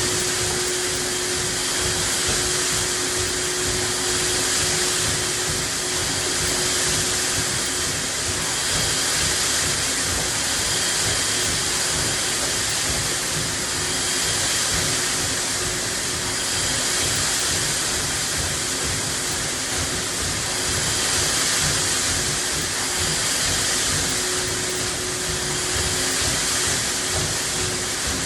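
Combine harvester running steadily while harvesting corn: an even rushing noise with a constant hum underneath.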